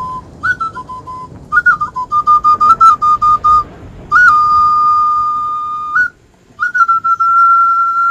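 Whistle calls blown at the mouth: a run of short piping notes, each jumping up in pitch and then settling, followed by two long held notes of about two seconds each, the second running out near the end.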